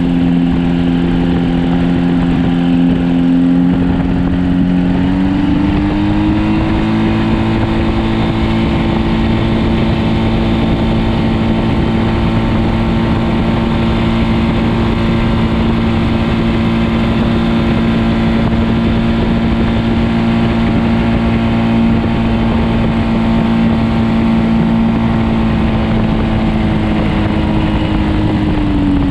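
Paramotor engine and propeller droning steadily in flight. About five seconds in the pitch rises a step as the throttle is opened, holds there, and drops back just before the end, with rough wind noise on the microphone underneath.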